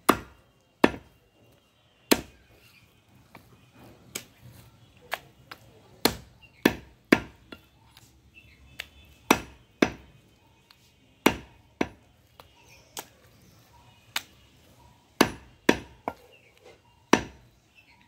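Heavy meat cleaver chopping mutton on a wooden log chopping block, sharp single chops at an uneven pace of about one or two a second.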